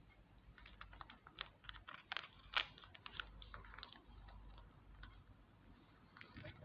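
Faint, irregular crinkling and clicking of paper and tape being handled, thickest in the first half and thinning out toward the end.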